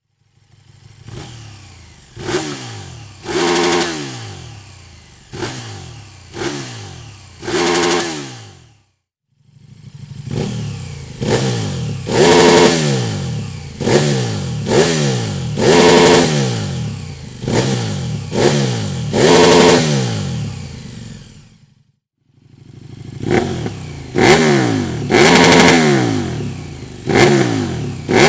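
KTM 1290 Super Duke R's 1301 cc V-twin engine revved in short throttle blips, each a quick rise and fall in pitch through the exhaust. The blips come in three runs of several each, with brief silent breaks between the runs.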